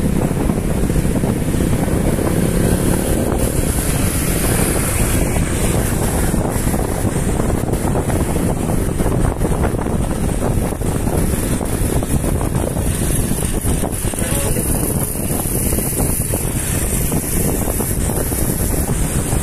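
Steady wind buffeting the microphone while riding along a street on a motorbike, with the road and engine noise blended beneath it.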